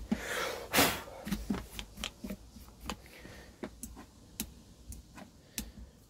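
Scattered light clicks and taps as fingers work a rubber-booted rocker switch into its hole in a plastic box lid, with a short rustle of handling about half a second in.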